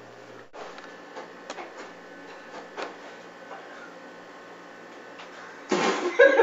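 Faint clicks and knocks of a refrigerator door and a plastic milk jug being handled in a small kitchen. Near the end comes a much louder burst as the jug is raised and drunk from.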